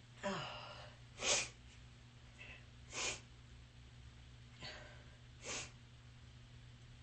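A person with a sniffly, runny nose sniffling repeatedly after a sneeze: five short, sharp nasal breaths about a second or two apart, the second one about a second in the loudest.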